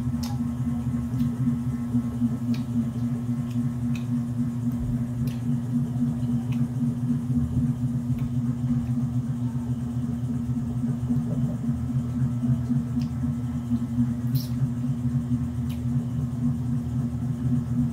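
A steady low drone throughout, with faint, scattered clicks and cracks of cooked crab shell being pulled apart by hand.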